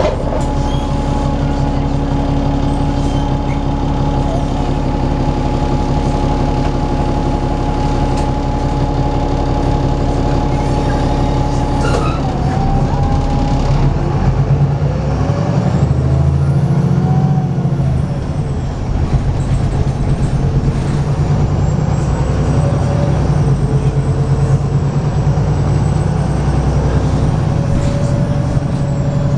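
VDL SB200 bus's diesel engine heard from inside the saloon, pulling hard with a loud steady drone. The tone changes about twelve seconds in, and the engine briefly eases off a little past the halfway mark before pulling again.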